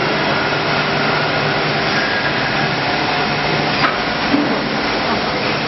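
PVD vacuum coating machine running: a loud, steady machine noise with a faint hum, and one sharp click about four seconds in.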